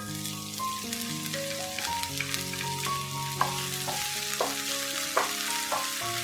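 Salt-and-chili tofu sizzling in hot oil as it is stir-fried in a pan, with a few sharp knocks of the spatula against the pan about halfway through and near the end. Background music plays alongside.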